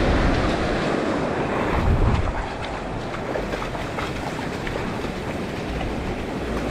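Shallow surf washing up the beach with foam fizzing over the sand, and wind buffeting the microphone, strongest about two seconds in.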